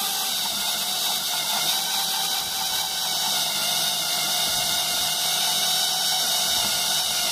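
Electric drill running steadily as a step bit cuts a hole through plexiglass.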